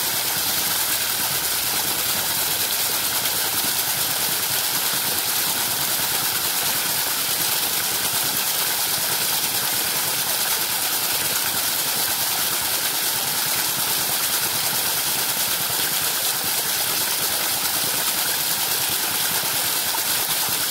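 Steady rush of a water jet from a PVC pipe splashing into the plastic food-container cups of a bicycle-wheel water wheel and onto the rocks below.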